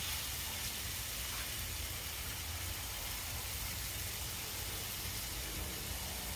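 Raw bacon strips sizzling on the hot nonstick surface of a Blackstone E Series electric griddle: a steady hiss, over a low rumble.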